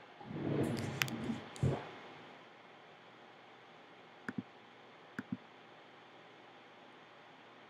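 Computer mouse clicking on a desk: a short stretch of rustling handling noise with a click about a second in, then two quick double clicks around four and five seconds in, over faint steady hiss.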